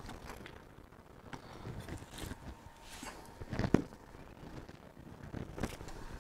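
Scattered light knocks and rattles as the metal motor and housing of a dismantled washing machine are handled and shifted on the ground. The loudest knock comes a little past halfway, with another near the end.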